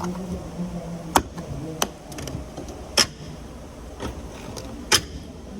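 Metal hand tools being handled in a steel tool box drawer: four sharp clanks spread over a few seconds amid light rattling.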